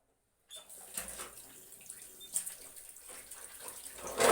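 Water running from a kitchen tap and splashing in the sink. It starts about half a second in and swells loudest just before the end.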